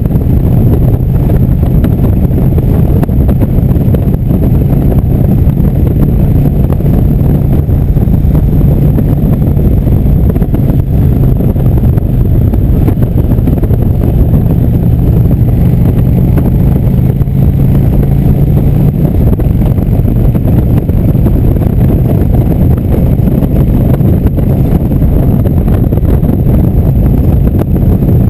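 Indian motorcycle's V-twin engine running steadily at cruising speed under heavy wind rumble on the microphone.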